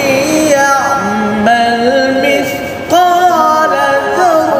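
Background music: a solo voice singing a slow melody in long, held notes that bend and slide between pitches.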